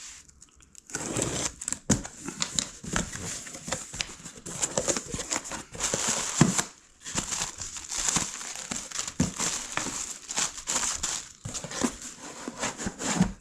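A mail package being torn open and its packaging handled by hand: continuous irregular crinkling and tearing with sharp crackles.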